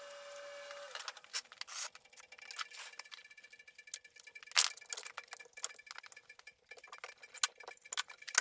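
Irregular light metallic clinks and clicks from tools and transmission parts being handled during assembly, with a sharper clink about halfway through.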